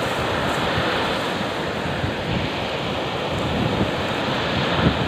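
Rough storm surf breaking and washing up a sandy beach, a steady roar of churning water, with strong wind buffeting the microphone.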